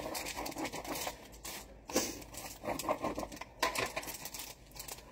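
Pizza wheel cutter rolling through a crisp baked chicken crust topped with romaine lettuce, on parchment paper: irregular crunching and crackling clicks, with a few sharper crunches about half a second, two seconds and three and a half seconds in.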